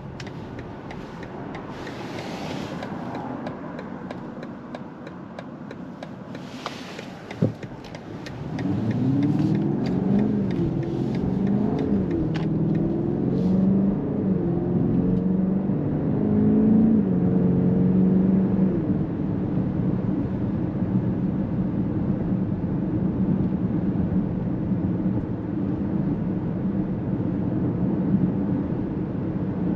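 BMW X7 M60i's twin-turbo V8 heard from inside the cabin. For the first several seconds it runs quietly, with a sharp click just before the engine note gets louder. The engine then accelerates hard, its pitch rising and stepping back down several times as the automatic gearbox shifts up, and it settles into a steady cruising drone for the last ten seconds.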